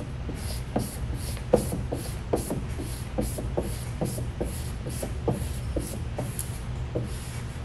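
Squeegee being rubbed over vinyl stripe film on a car door in quick, repeated short strokes, about two to three a second, each a brief scraping hiss, over a steady low hum.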